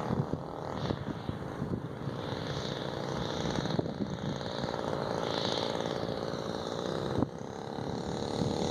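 NGH 35cc single-cylinder two-stroke gas engine of a quarter-scale Piper Cub model airplane running in flight, a steady drone growing louder as the plane comes closer. The level drops sharply about seven seconds in. Wind rumbles on the microphone underneath.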